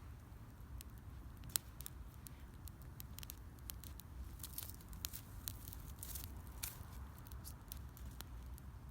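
Wood fire burning, crackling with irregular sharp pops; the loudest pop comes about a second and a half in. A steady low rumble runs underneath.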